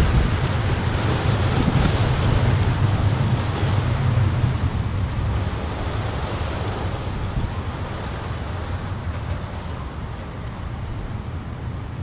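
Strong Santa Ana wind gusting through a pine tree, rushing through its needles and buffeting the microphone with a deep rumble. The gust eases off over the second half.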